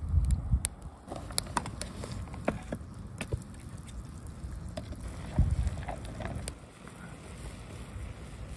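Wood fire crackling in a camp stove, with scattered sharp pops and snaps, beneath a mess tin of soup coming to the boil. Two deep rumbles come through, one right at the start and one about five seconds in.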